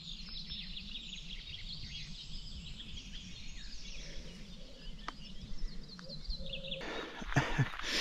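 Small birds chirping and twittering over a steady low outdoor background. Near the end comes a louder rustle.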